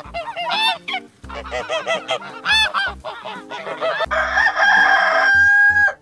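Greylag geese honking in a run of repeated calls, then a rooster crowing one long, held crow about four seconds in.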